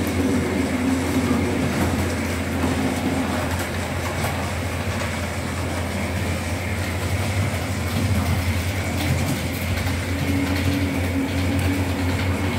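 Model train running somewhere on the layout: a steady hum of its motor and wheels rolling on the rails. The hum grows louder near the start and again towards the end, as the train comes closer.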